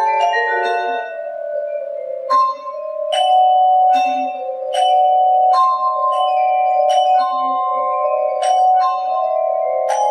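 Solo vibraphone played with mallets, the notes ringing on and overlapping as if the damper pedal is held. It opens with a few quick notes, then single strokes come about every three-quarters of a second, each left to sustain.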